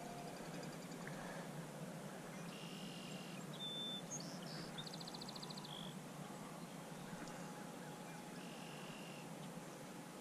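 Faint outdoor background noise with a few faint bird calls, including a short rapid trill about four to five seconds in and another brief call near the end.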